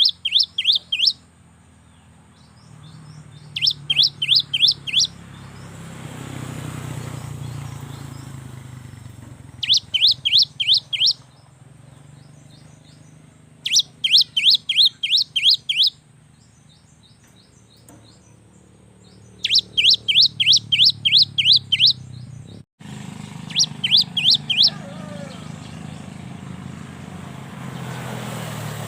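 Cinereous tit (gelatik batu) singing: bursts of six to eight quick, repeated high notes, a phrase every four to five seconds. A low steady hum runs underneath.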